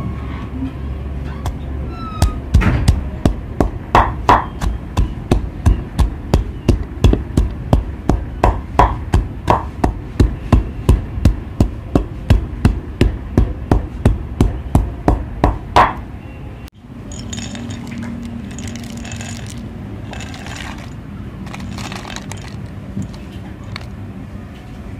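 A stone pestle pounding herb and spice paste (kroeung) in a stone mortar, about three hard, even strokes a second. The pounding stops about 16 s in.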